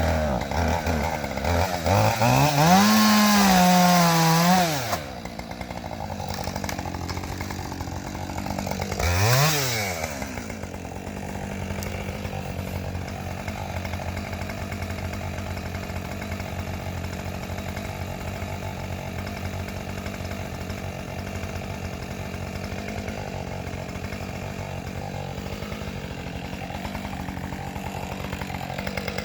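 Husqvarna 545 Mark II two-stroke chainsaw revved to full throttle for a few seconds, dropping back, given one short blip of throttle, then idling steadily.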